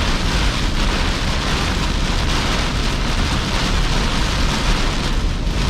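Torrential rain hammering steadily on a car's roof and windshield, heard from inside the cabin, with the low rumble of the vehicle driving through it.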